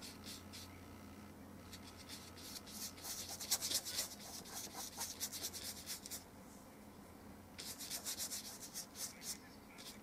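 Flat paintbrush scrubbing oil paint onto rough-textured paper, a dry scratchy rubbing made of quick back-and-forth strokes. The strokes come in two brisk runs with a short pause about six seconds in.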